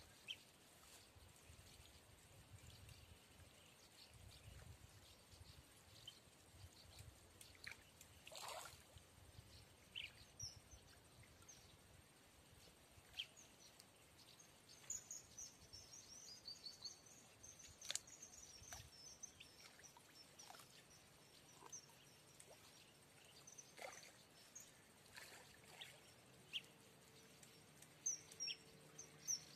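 Faint outdoor ambience with a small bird singing a high twittering phrase about halfway through, and short chirps near the start and end, over scattered faint clicks.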